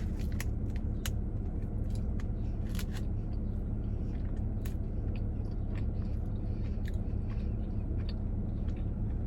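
Close-miked chewing of a soft egg toast sandwich: wet mouth clicks and smacks scattered irregularly, over a steady low hum.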